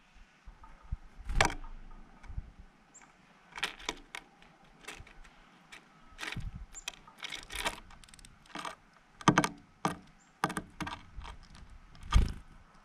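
Black-capped chickadee foraging on a wooden feeder tray of sunflower seeds right by the microphone: irregular taps, clicks and scrapes of its feet and bill among the seeds and on the boards, with a few louder knocks and wing flutters as it lands and takes off.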